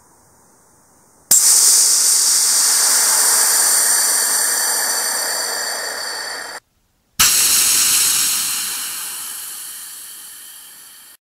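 Cold-flow test of a small regeneratively cooled ethanol and gaseous-oxygen rocket engine, unlit: pressurized propellant and oxygen hiss out of the nozzle. The hiss comes twice, each time starting suddenly and slowly fading.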